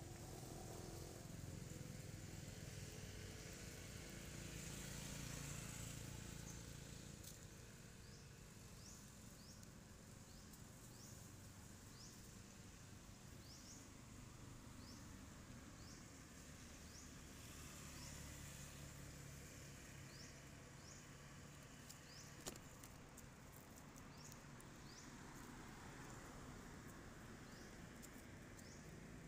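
Faint outdoor ambience: distant road traffic, a low rumble that swells and fades as vehicles pass, with a short high chirp repeating about once a second and a single sharp click near the end.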